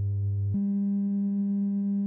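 Synthesized attention tones of a recreated Russian emergency alert: a low steady tone that steps up to a higher steady tone about half a second in.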